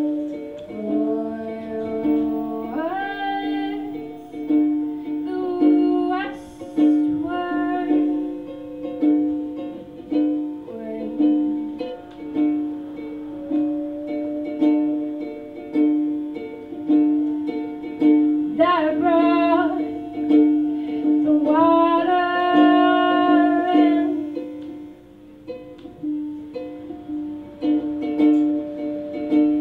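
A woman singing to her own ukulele, a steady strummed accompaniment with sung phrases coming in and out over it.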